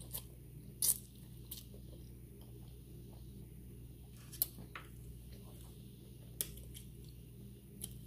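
A person chewing food close to the microphone, with wet mouth smacks and clicks scattered through, the loudest about a second in.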